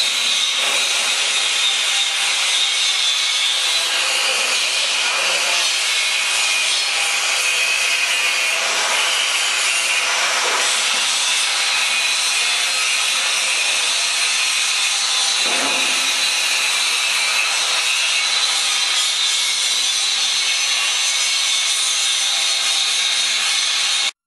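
Steady rushing, rustling noise of fried potato chips tumbling in a stainless steel octagonal seasoning drum as it is tipped to pour them into a plastic tub, with a few faint knocks; it cuts off suddenly near the end.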